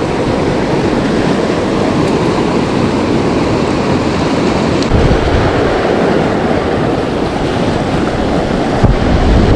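Fast-flowing creek water rushing steadily, with gusts of wind buffeting the microphone about five seconds in and again near the end.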